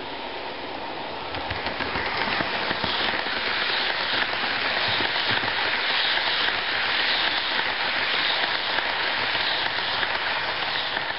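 H0-scale Roco Railjet model train rolling past on the track: a steady rattling hiss of metal wheels on the rails. It gets louder about a second and a half in as the coaches pass close by.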